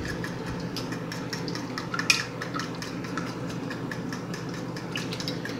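Spoon stirring a thick cocoa-and-sugar mixture in a stainless steel pot, with repeated light clinks and scrapes against the pot's sides and one sharper clink about two seconds in.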